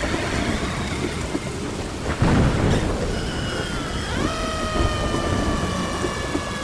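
Effect-processed air-raid siren: a dense, noisy rumbling hiss with a loud burst about two seconds in. Then, at about four seconds, a siren tone with several overtones rises quickly and slowly falls.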